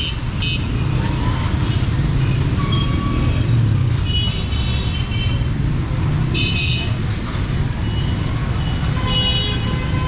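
Street traffic: motorcycle and car engines running with a steady rumble, and horns giving short beeps about three times.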